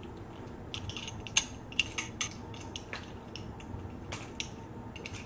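A scatter of light clicks and taps from kitchen items being handled on a counter, among them a jar of minced garlic whose stiff lid is being twisted at.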